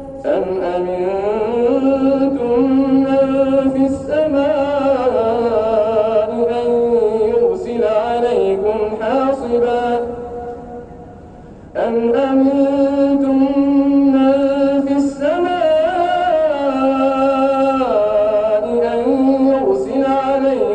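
A man reciting the Quran in a slow, melodic chant, holding long notes and ornamenting them. He pauses for breath about ten seconds in, then resumes.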